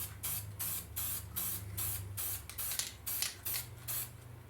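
Black spray paint hissing out of a spray can in short quick bursts, about three a second, as a light coat is sprayed over a stencil; the bursts stop about four seconds in. A low steady hum runs underneath.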